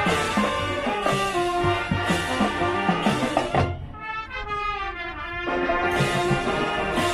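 A high school marching band plays, with brass and drums. Past the middle the drums drop out and the band plays a softer stretch of held, wavering notes for about two seconds, then the full band comes back in.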